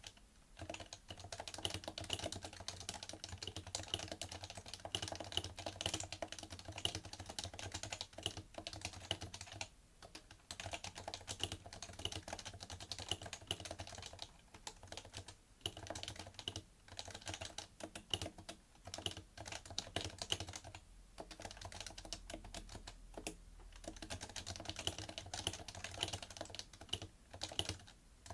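Continuous typing on a PFU Happy Hacking Keyboard Professional2 with Topre capacitive key switches: a dense, fast run of keystrokes with a few brief pauses.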